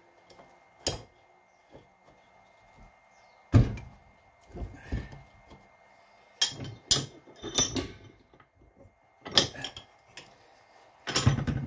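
Wrench and metal tools clanking and knocking against a rusty hydraulic cylinder and its line fitting as the line is worked off. About eight sharp knocks, irregularly spaced, some with a short metallic ring.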